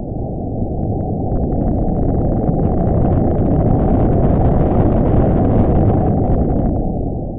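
A deep rumbling sound effect for the logo intro, swelling over the first few seconds with faint crackles on top, then fading near the end.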